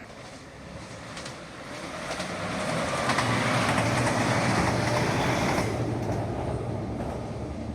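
JR Shikoku 2700 series diesel multiple unit passing by: engine and wheels on the rails build up, are loudest for a few seconds in the middle, then fade as the train moves away.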